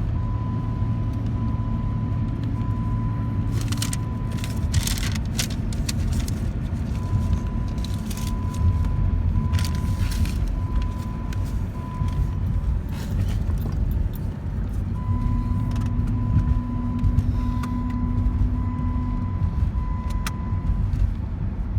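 A car driving, heard from inside the cabin: a steady low rumble of engine and road noise, with a short beeping tone repeating about twice a second in three spells. A few brief rattles come about four and ten seconds in.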